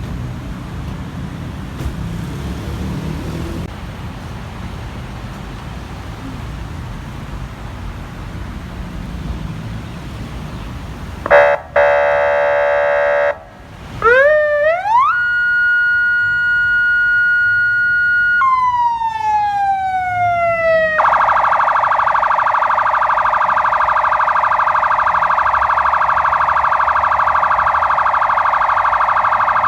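An 8200B electronic vehicle siren sounded through its tones over a low rumbling background. About 11 seconds in comes a buzzy horn blast of about two seconds. After a short gap, a wail rises and holds steady, then slides down, and then switches to a rapid warbling tone that runs to the end.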